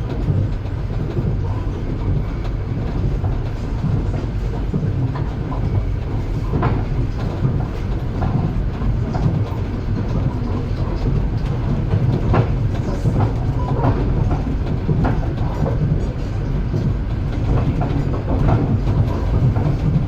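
Train wheels clattering over the rails with a steady low rumble, with clicks of the wheels over rail joints now and then.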